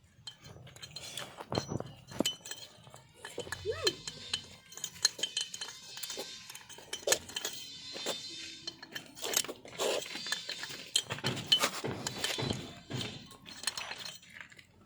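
Metal hand tools and small engine parts clinking and knocking together in irregular, scattered strikes during engine work.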